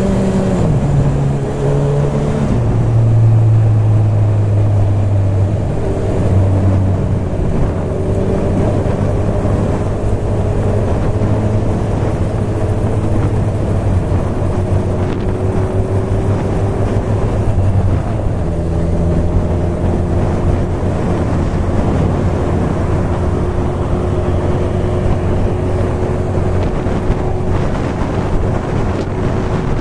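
Honda CB1000R inline-four motorcycle engine, heard from the rider's position: the revs step down twice in the first few seconds, then the engine holds a steady cruise. Heavy wind noise buffets the microphone throughout.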